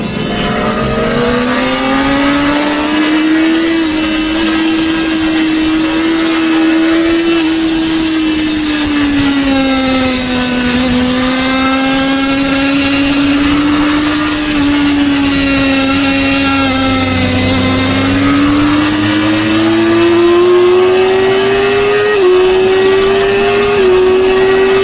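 Sport motorcycle's engine at racing speed, heard from onboard: revs climb in the opening seconds, ease off and hold through a long bend, then climb again. Near the end the pitch briefly dips twice as the bike shifts up through the gears.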